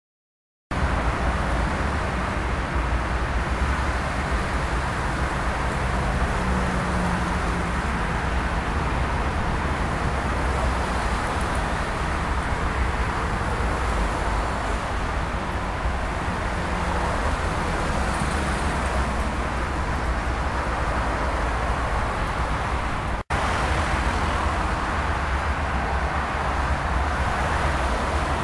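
Steady outdoor background noise with a strong deep rumble, typical of distant road traffic, starting abruptly just after the beginning and dropping out for an instant about three-quarters of the way through.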